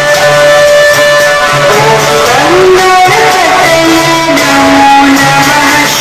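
Loud music blaring from a DJ sound system: a sliding lead melody over a steady repeating low beat.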